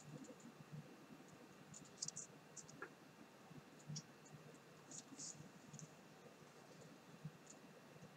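Near silence, with faint, scattered clicks and crinkles of a folded paper leaflet being held and shifted in the hands.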